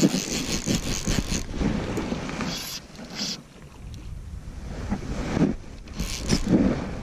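Wind buffeting the microphone, with louder bursts of close rustling and scraping as the angler works his fly reel while fighting a fish: one for the first second or so, two short ones in the middle and another near the end.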